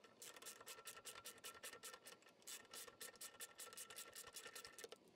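Ratchet wrench clicking in a quick, even run as it backs out a 10 mm mounting bolt; faint.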